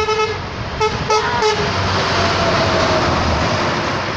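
A truck's horn sounds in short blasts near the start, then the truck passes close by with a loud, steady rush of engine and tyre noise.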